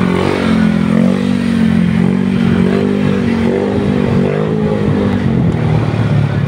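Motorcycle engine running under way, its pitch wavering gently with the throttle and dropping lower about five seconds in as it eases off.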